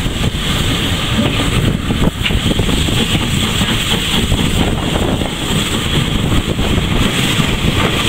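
Heritage train carriage running along the line: a steady rumble of wheels on rail.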